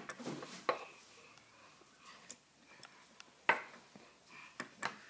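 Small hand-held objects knocked against a wooden table top by a toddler: a few sharp, irregular knocks, the loudest about three and a half seconds in and two more close together near the end.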